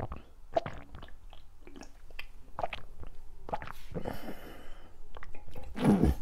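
Close-miked mouth sounds of eating and drinking: swallowing gulps from a drink can, then lip smacks and chewing clicks. There is a louder throaty sound near the end.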